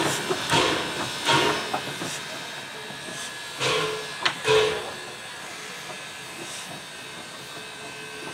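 Heisler geared steam locomotive No. 6 moving slowly, its exhaust chuffing in uneven puffs with a steady hiss of steam beneath. The chuffs come in a quick run at first, two more follow near four seconds with a sharp click between them, then only a soft hiss remains.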